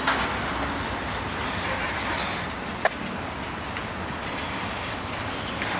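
Freight cars rolling past on the track, their wheels rumbling steadily over the rails, with a single sharp clack about three seconds in.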